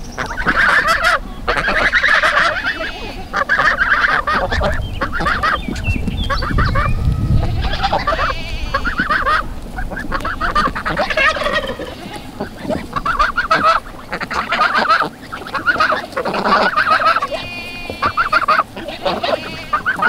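Domestic geese honking, many loud, harsh calls one after another.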